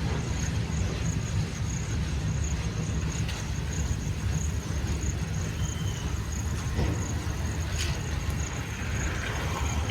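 Steady low rumble of a train running, with a faint high whine held throughout.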